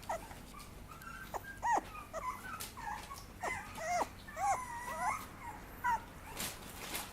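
Papillon puppy whimpering: a string of short, high-pitched squeaks that rise and fall in pitch.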